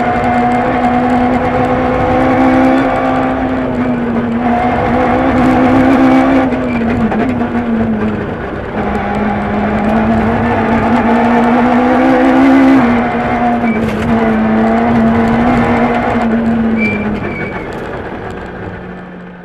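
Peugeot 106 F2/13 rally car's four-cylinder engine heard from inside the cabin at speed on a rally stage. The engine note dips and climbs with gear changes and lifts, drops in pitch about thirteen seconds in, then fades out at the end.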